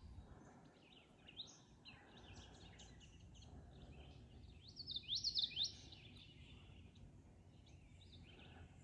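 Wild birds singing and calling from the waterside trees, with a quick run of loud sliding notes about five seconds in, over a faint low background rumble.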